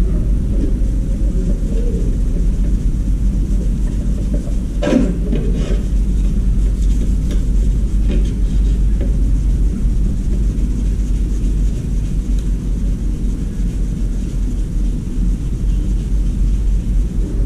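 A steady low rumble throughout, with a short cluster of clicks and rattles about five seconds in and a few fainter ones a few seconds later, as the fan motor's wires are handled.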